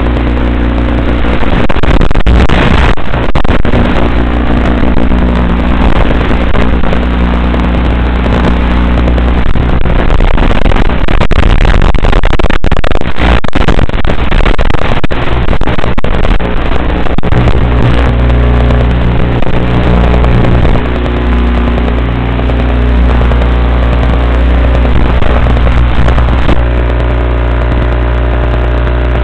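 RC truck's motor running steadily, heard close up through the truck's onboard camera, with clusters of knocks and rattles about two seconds in and again from about ten to sixteen seconds in.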